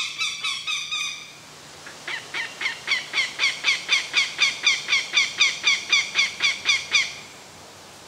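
Northern goshawk giving its rapid, repeated kak-kak-kak alarm call in defense of its nest, about four calls a second. A short run of calls is followed by a pause of under a second, then a longer run of some twenty calls that stops about a second before the end.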